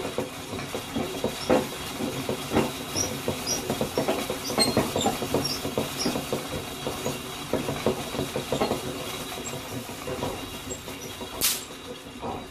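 Antique hand-cranked Wimshurst machine turning, its counter-rotating discs and drive clattering with a run of irregular clicks and ticks. One sharp crack near the end.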